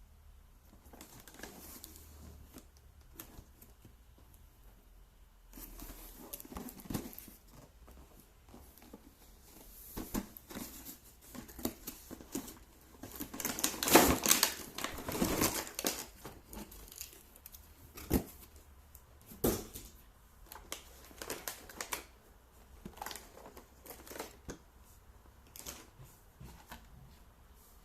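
Packaging being handled and opened: irregular crinkling and tearing of plastic and cardboard with scattered clicks and knocks, loudest about halfway through.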